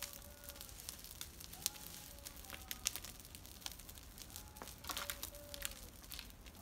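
Pile of dry branches and brush burning, crackling with sharp, irregular pops. Faint short tones gliding a little in pitch sound in the background.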